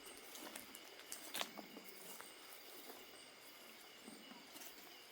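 Faint night ambience of forest insects: a steady high-pitched chirring, with a few soft clicks, the clearest about a second and a half in.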